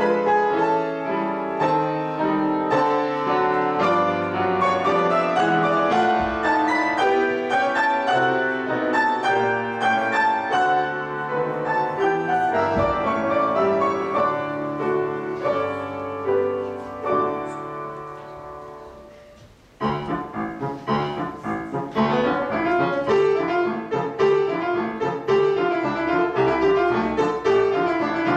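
Grand piano playing a classical-style piece. About two-thirds of the way through, the music dies away into a short pause, then starts again suddenly at full strength.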